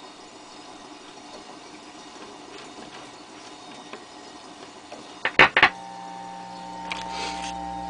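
Pushbutton station selector of a 1946 Farnsworth radio being pressed: three sharp mechanical clacks about five seconds in, after which the set gives a steady hum over faint static hiss. The uploader puts the static down to fluorescent lighting.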